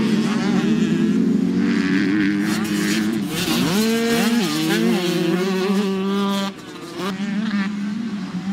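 Motocross dirt bike engines at racing revs. About three and a half seconds in, one bike revs up sharply and back off over a jump, then holds a steady high rev. Shortly after six seconds that engine cuts off and a different engine note comes in.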